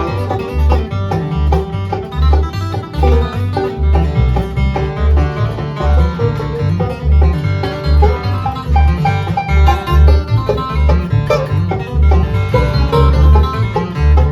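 Live bluegrass band playing an instrumental break between sung verses: plucked string instruments over a steady low bass pulse of about two notes a second.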